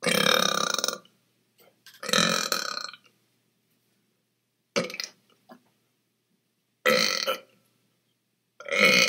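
A man burping five times, roughly every two seconds. Most of the burps last half a second to a second; the third is short, and the last runs on past the end.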